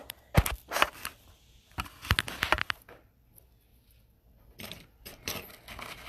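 Small sharp clicks and taps of beads and a plastic bead box being handled on a tabletop: a few single clicks, a quick cluster about two seconds in, a short lull, then softer clicking and rustling near the end.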